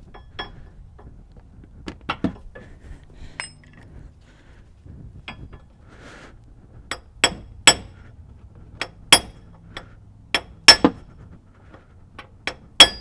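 Sharp metal-on-metal taps and clinks with a bright ring, a tool knocking at the bolted inner flange of a GM 4WD truck's front half shaft to break it loose. The strikes are scattered at first, then louder and closer together from about seven seconds in. The flange is stuck on tight.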